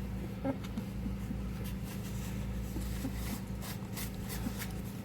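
Steady low hum, with a few faint, short squeaks from young puppies being handled and light rustling clicks now and then.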